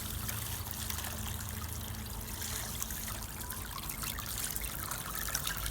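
Water from a garden hose trickling and running steadily along a rain gutter, poured in to test the gutter's slope and drainage.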